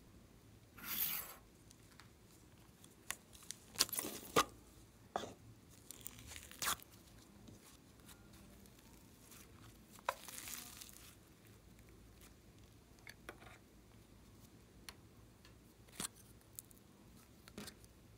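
Soft slime worked by hand, kneaded, pressed and pulled apart. It gives faint scattered sticky clicks and pops and a few short tearing sounds, the loudest cluster between about four and seven seconds in.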